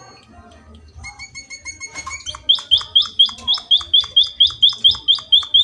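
Munia (emprit) calling: a thin, steady whistled note, then, about two seconds in, a fast, even series of loud, sharp, high, down-slurred chirps, about four or five a second.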